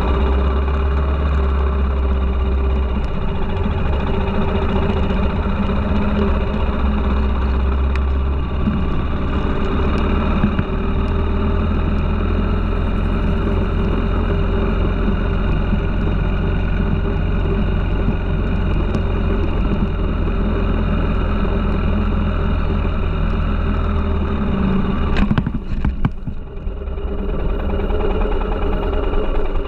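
Motorcycle engine running steadily while the bike is ridden, heard close from a handlebar-mounted camera. About 25 seconds in, the engine note drops for a moment with a few clicks.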